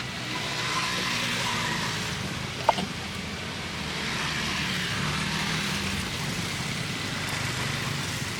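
Street traffic, motorbike engines passing by, with one sharp click about two and a half seconds in.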